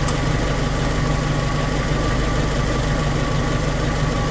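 1992 Suzuki Jimny's engine idling steadily, an even hum with a faint steady high tone over it.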